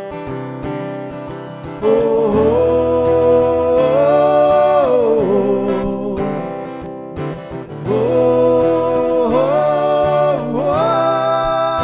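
Acoustic guitar strumming, with a voice singing long wordless notes over it in two held phrases that rise and fall.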